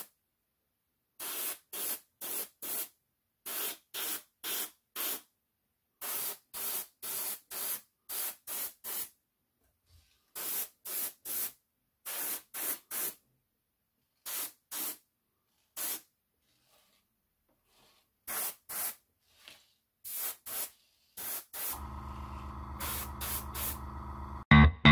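Gravity-feed airbrush spraying metallic paint in short hissing bursts, a fraction of a second each, often two to four in quick succession with pauses between. Music comes in near the end and is loudest in the last moment.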